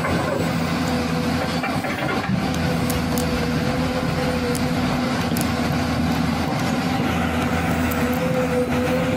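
A motor-vehicle engine running steadily, an even hum that holds one pitch with no revving.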